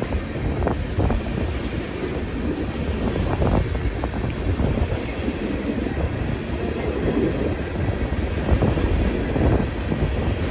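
Train cars rolling past on the rails: a steady low noise of wheels on track, with a few short wheel squeals and clanks.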